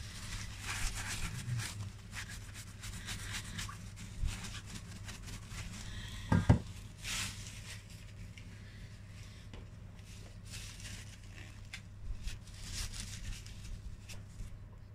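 Faint, irregular rubbing, rustling and scraping handling noises over a steady low hum, with one brief louder sound about six and a half seconds in.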